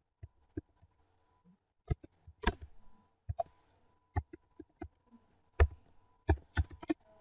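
Computer keyboard keystrokes as a short terminal command is typed: irregular single key clicks, sometimes in quick pairs, some louder than others.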